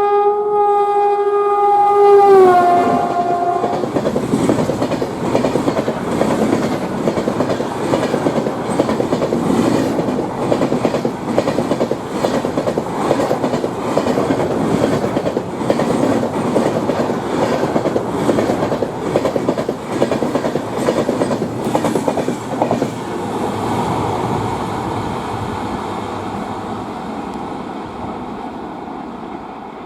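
Indian Railways express train passing close by. The locomotive's horn sounds and drops in pitch as it goes past about two seconds in, then the coaches rattle by with a rhythmic clickety-clack of wheels on the track. The sound fades away over the last several seconds.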